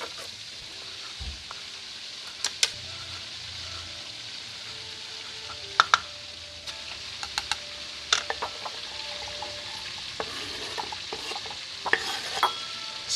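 Whole carp deep-frying in hot oil: a steady sizzle, broken by a few sharp clicks and knocks.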